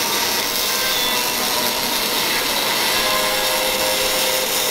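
An electric arc torch working on a car's exhaust pipe under a lift during a mid-muffler (resonator) delete, making a steady, unbroken noise.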